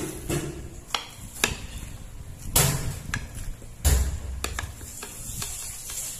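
A large kitchen knife cutting through watermelon slices on a plate: a series of sharp knocks as the blade goes through the rind and meets the plate, with a heavier thump about four seconds in.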